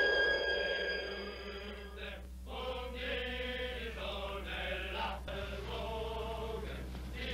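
A group of voices singing a slow chant with long held notes, beginning about two and a half seconds in. Before that, a sustained high musical tone fades away.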